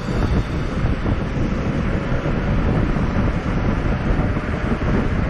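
Wind buffeting the microphone of a camera on a moving bicycle: a steady, loud rumble.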